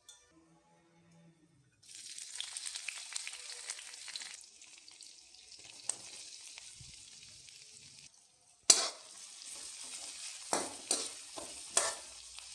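Food sizzling in hot oil in a pan. The sizzle starts suddenly about two seconds in, eases off, stops, then flares up loudly again several times near the end.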